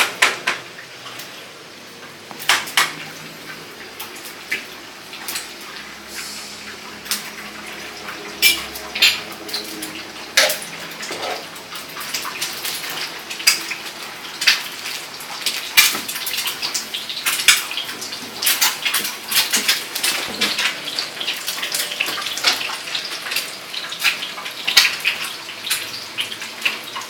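Dishes, containers and other household items repeatedly clinking and clattering as they are handled and moved about, in rummaging through a fridge, with many short knocks coming thicker in the second half.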